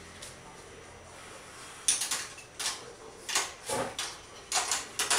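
Balls rolling and clacking through a large plastic marble run: from about two seconds in, a string of irregular sharp clicks and rattles as balls drop and hit the track, one with a deeper knock.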